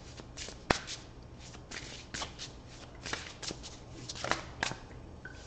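A deck of tarot cards being shuffled by hand: an uneven run of soft card-on-card rustles and flicks, with one sharper snap just under a second in.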